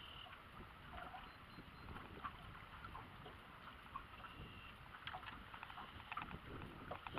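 Wind rumbling on the microphone, with water lapping against an aluminum boat's hull and scattered small ticks and knocks.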